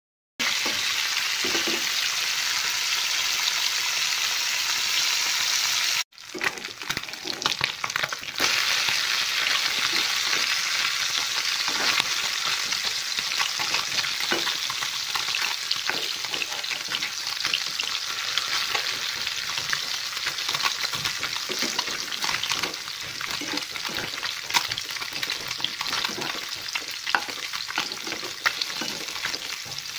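Small whole fish sizzling steadily as they fry in oil in a non-stick wok, with a spatula scraping and turning them. The sizzle cuts out briefly about six seconds in, then carries on with scattered small scrapes and clicks.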